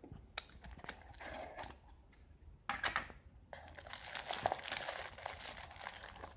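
Packaging crinkling and rustling as a doorbell is unboxed: scattered clicks and short rustles, then a longer stretch of crinkling from about halfway in.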